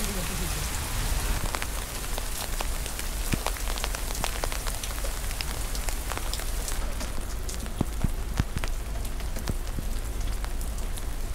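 Heavy rain falling, with many sharp ticks of drops striking close by and wind rumbling on the microphone.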